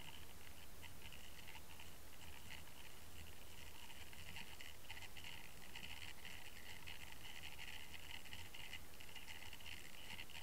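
Steady scratchy crackle of fine ticks over a low rumble: water rushing and line noise picked up inside an underwater camera's housing as it is towed through the water on a fishing line.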